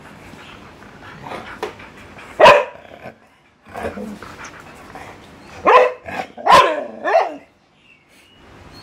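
A dog barking in short play barks: one loud bark about two and a half seconds in, then three in quick succession around six to seven seconds, with a few softer yips between.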